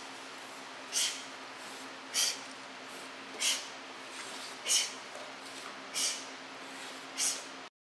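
Short, sharp hissing exhalations repeating evenly about every 1.2 seconds, like the breath forced out with each strike of a karate drill, over a steady low hum.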